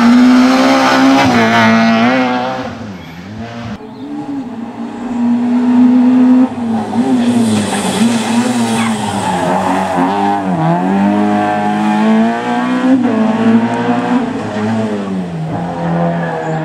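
Peugeot 106 rally car's four-cylinder engine revving hard through tight hairpins. The pitch repeatedly climbs and drops as the driver accelerates, lifts and shifts, across several passes joined by cuts.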